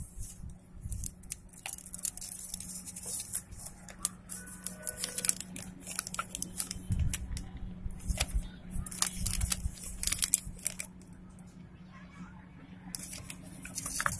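Plastic courier mailer bag crinkling and rustling in irregular sharp crackles as it is handled, quieter for a couple of seconds near the end before louder crinkling resumes.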